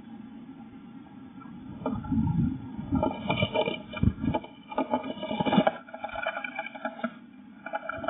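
Blue tit scrabbling and fluttering in a wooden nest box, heard close up from inside the box: a run of scratches, knocks and wing flaps on the wood, loudest in the middle, with lighter scratching near the end.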